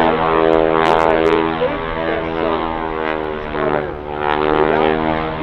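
Boeing Stearman biplane's radial engine and propeller running with a steady, even drone, easing off slightly about four seconds in.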